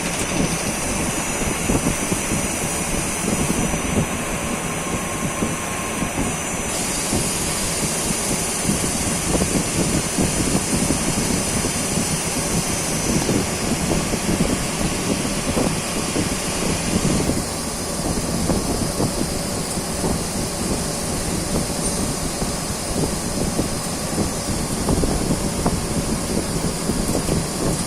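CNC lathe running through a machining cycle: a steady mechanical noise whose high hiss changes several times, at about four, seven and seventeen seconds in.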